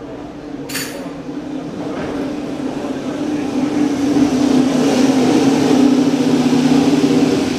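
Aprilia MotoGP race bike's V4 engine running steadily at a high idle, growing louder from about three seconds in. A sharp click comes about a second in.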